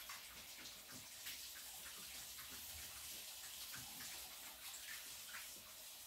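Dogs lapping and chewing soft jellied meat, heard as faint, irregular wet licking and smacking clicks.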